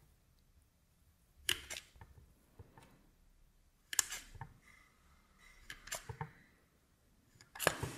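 A thin metal blade slicing through a striped polymer clay cane and clicking down onto the hard tile beneath, three sharp clicks a couple of seconds apart with a few softer taps between.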